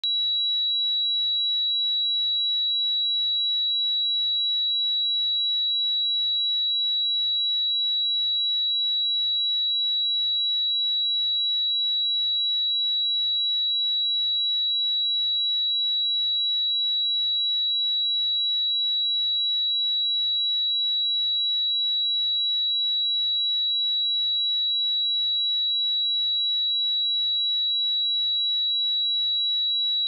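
A steady, unbroken 3901 Hz pure sine-wave test tone: a single high-pitched whistle-like tone at constant pitch and level, used for speaker and headphone testing.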